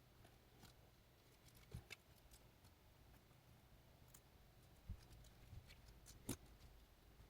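Faint, scattered small clicks and taps of precision tools working on a smartphone's internals, with the sharpest click about six seconds in; otherwise near silence.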